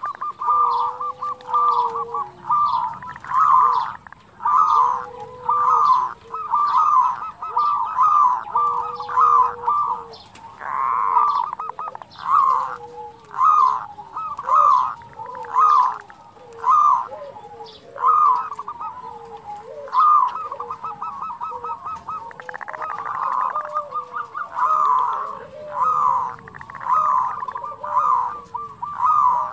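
Zebra dove (perkutut) calling: a long run of short cooing notes repeated roughly once a second, with rough, grating kerot notes among them.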